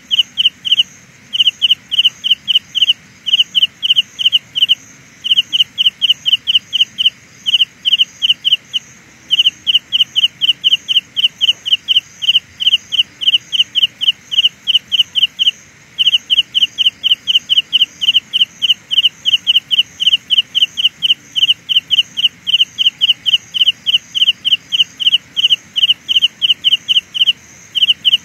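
Carolina ground cricket singing: a long, high-pitched pulsing trill of about four pulses a second, in runs broken by brief pauses.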